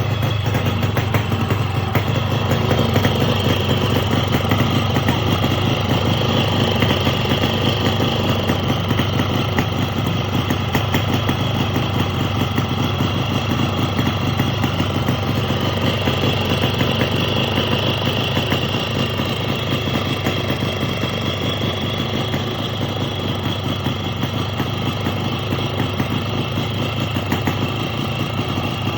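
Yamaha RX-King's two-stroke single-cylinder engine idling steadily.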